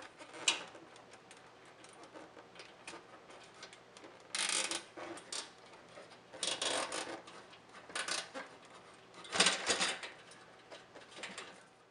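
A long nylon zip tie being threaded around the defrost sensor on the evaporator coil and pulled tight: scattered small clicks and taps, with four short bursts of ratcheting as the tie is drawn through its lock.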